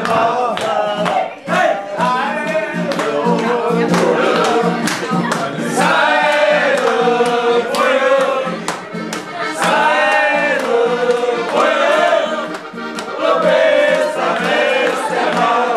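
A group of men singing a song together in chorus, several voices holding long notes, to a regular sharp beat.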